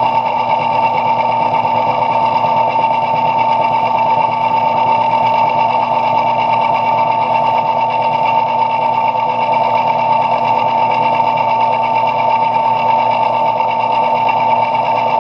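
Metal lathe running at a steady speed, with a constant whine from its motor and gearing.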